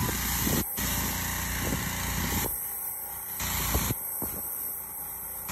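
An engine running steadily at a constant speed, with water spraying from a wand onto the clay.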